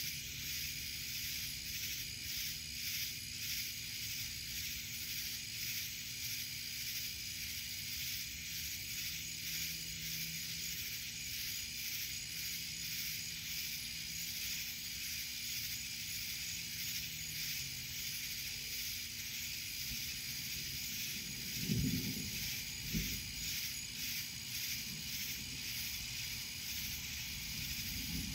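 Night insect chorus: a steady, high-pitched buzzing with a fast pulsing texture. Two short, low thumps about a second apart come about three-quarters of the way through.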